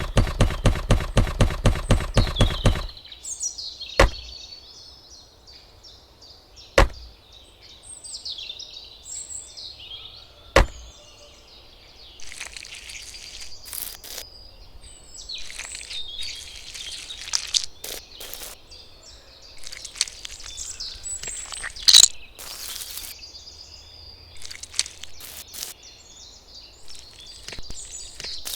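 A rhythmic bouncy sound effect pulses for the first few seconds. Birds then chirp and twitter, with a few sharp knocks and scattered rustling bursts.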